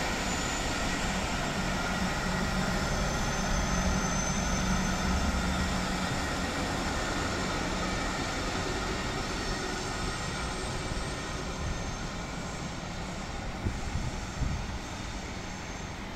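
A train passing and moving away: a steady rumble with several whining tones held over it. It is loudest about four seconds in, then fades gradually, with a couple of short knocks near the end.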